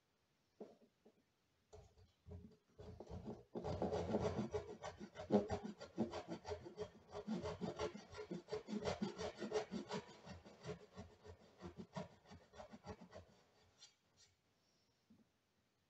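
Hand backsaw cutting across a wooden board: a few light starting strokes, then about ten seconds of steady, quick back-and-forth sawing that tapers off near the end.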